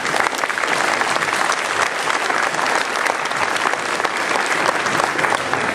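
Audience applauding: dense, steady clapping from many people that starts just as the ensemble's music stops.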